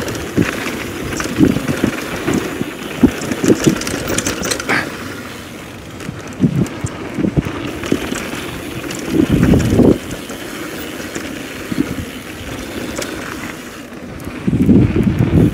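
Downhill mountain bike rolling fast over a dirt and gravel trail: tyre noise on the ground, wind buffeting the microphone, and frequent knocks and rattles from the bike over bumps. The knocking is heaviest around nine seconds in and again near the end.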